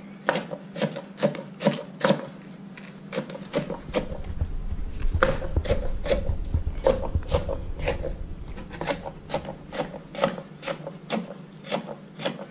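Chef's knife slicing a cucumber on a cutting board: a steady run of sharp knife taps against the board, about two to three a second.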